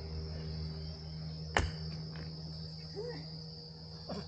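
A long-handled digging tool strikes hard soil twice, sharply, over a steady high insect trill and a steady low hum.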